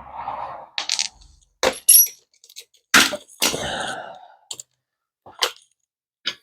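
Metal hand tools clinking and clattering: a string of separate sharp knocks, some with a short high ringing ping.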